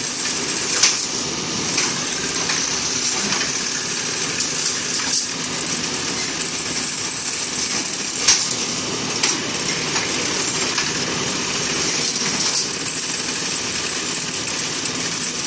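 CNC five-head rebar straightening and stirrup-bending machine running: a steady machine drone with a high whine, broken by sharp metallic clacks at irregular intervals a few seconds apart.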